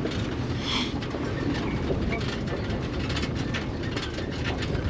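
Open safari game-drive vehicle driving along a rough dirt track: a steady engine and road rumble with constant rattling and clatter from the vehicle's body.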